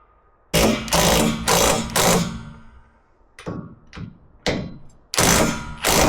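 Impact wrench run in short bursts, driving a nut down on a bolt: four bursts close together, three quicker ones, then a long loud one near the end.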